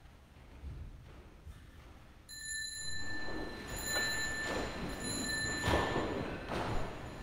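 A small high-pitched sacristy bell rings about two seconds in and keeps sounding for a few seconds with a shimmering tone, signalling the priest's entrance at the start of Mass. Shuffling and soft thuds sound under it.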